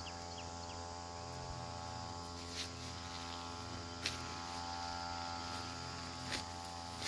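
A steady hum held at one constant pitch, with a few faint clicks.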